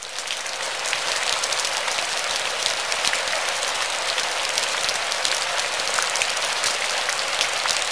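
Steady rain falling: a dense, even patter of drops that fades in over the first second.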